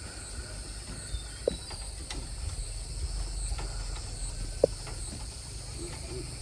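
A steady, high-pitched chirring of insects, with two short hollow knocks, one about a second and a half in and one near two-thirds of the way through.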